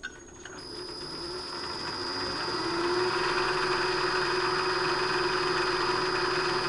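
Milling machine spindle with a 5/8-inch end mill starting up, coming up to speed over a couple of seconds and then running steadily with a high whine and a motor hum.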